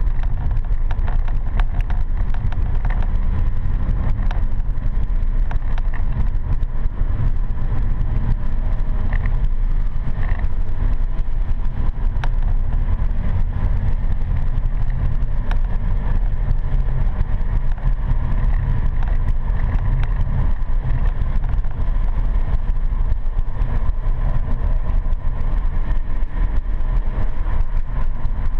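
Steady, loud low rumble inside the cabin of a BMW M3 E92 on track: the car's V8 engine and road noise, with no clear rise or fall in revs.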